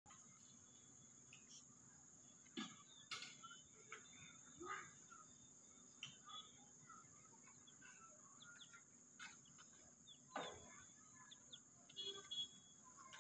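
Near silence: a faint, steady, high-pitched insect drone, likely crickets, with scattered faint chirps and a few soft knocks.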